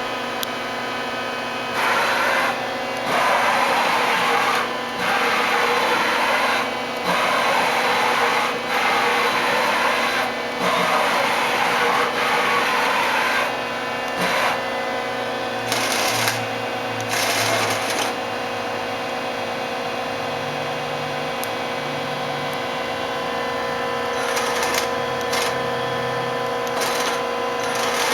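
Mori Seiki ZL-25A CNC turning center running under power: a steady machine whine of several held tones, broken by a string of noisy bursts about a second long each in the first half, then a few shorter bursts later.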